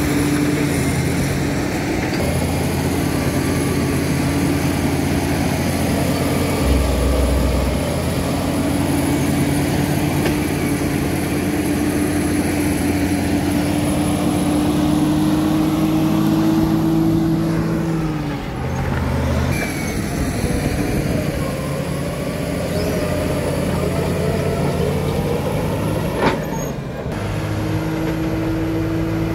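Bulldozer diesel engine running steadily under work, its pitch creeping slowly upward and then dropping away about two-thirds of the way through before picking up again. A single sharp click comes near the end.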